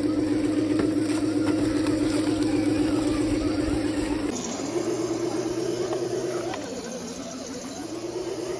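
Electric motor and gear drivetrain of a 1/10-scale RC4WD Trail Finder 2 Land Cruiser crawler whining steadily at low speed. After about four seconds the whine wavers up and down as the throttle changes over rocks.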